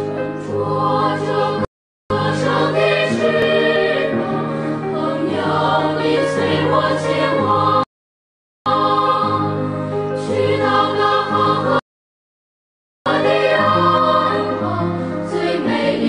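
Background music with choral singing, cutting out abruptly to dead silence three times for under a second to about a second each.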